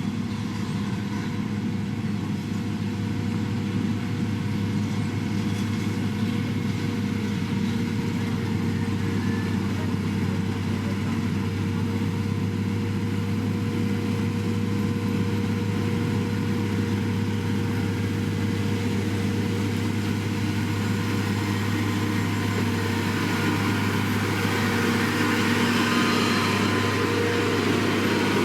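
Diesel engine of heavy road-construction machinery, a motor grader or road roller, running steadily with a low hum; it grows slightly louder near the end.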